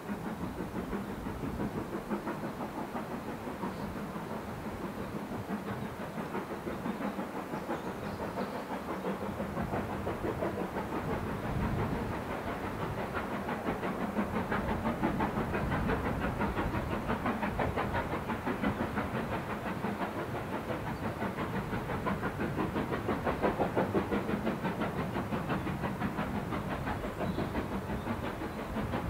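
A steam train running, a fast, even rhythm of beats that swells and fades in loudness.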